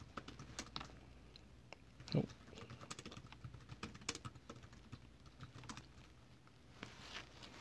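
Faint, irregular keystrokes on a laptop keyboard as a terminal command is typed, with one heavier keystroke about two seconds in.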